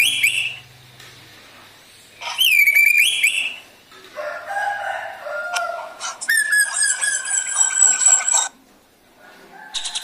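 Caged drongo singing loud, harsh calls in separate phrases. Two falling whistles are followed by a rougher chattering phrase, then a long held whistle of about two seconds, and a short rapid trill near the end.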